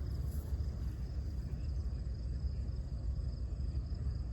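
Crickets trilling steadily in a high, finely pulsing chirr, over a continuous low rumble.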